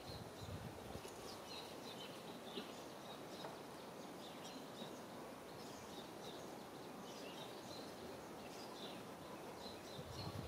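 Quiet outdoor ambience: a steady low background hiss with small birds chirping, short high calls scattered throughout.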